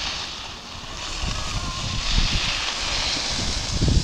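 Skis sliding and edging on packed snow: a hiss that swells and fades with the turns, over wind buffeting the microphone.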